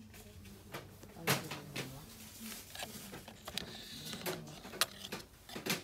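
Scattered light clicks and knocks of plastic lip-balm blister packs being handled on metal peg hooks, over a steady low hum of shop background.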